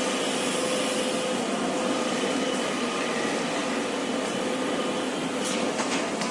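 Steady railway platform ambience: an even hiss-like hum with a faint whine from a standing passenger train and the station, with a few light knocks near the end.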